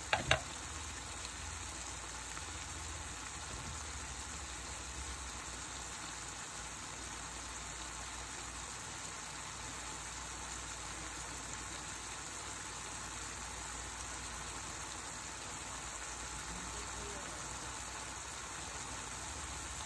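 Chopped onion, celery and bell peppers sizzling steadily in a cast iron skillet, with one short knock just at the start.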